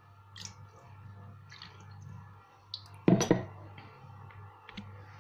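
Pickling brine trickling faintly from a plastic jug into glass jars of lemons, then a short, loud clatter of knocks about three seconds in.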